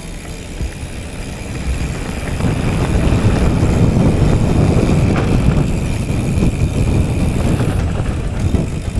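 Wind buffeting the camera microphone and mountain-bike tyres rumbling over the trail on a downhill run, growing louder from about two seconds in.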